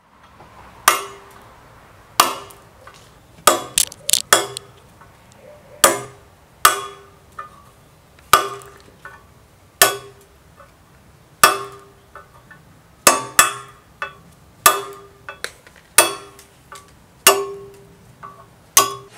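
Hammer blows on a stone-carving chisel: about seventeen sharp strikes, mostly a second or so apart with a quick run of several around four seconds in, each leaving a brief ringing note.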